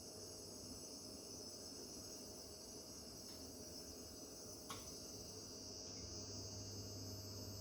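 Rangemaster Encore Deluxe 100 range cooker making a steady high-pitched whine while operating. A low hum grows louder about six seconds in.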